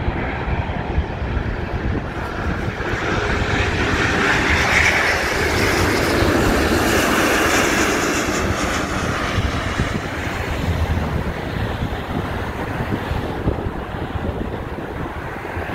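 Airbus A350-900 on final approach with its Rolls-Royce Trent XWB engines, passing low overhead with the landing gear down. A jet whine and rush builds over a few seconds, is loudest in the middle, then fades away.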